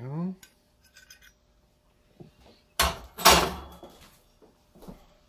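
Kitchen dishes being handled: a few light clicks, then two loud scraping knocks close together about three seconds in, as a plate is set down and slid on the counter.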